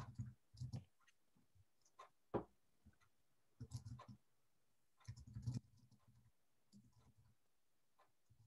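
Near silence with a few faint, irregular clicks and taps picked up by a video-call microphone.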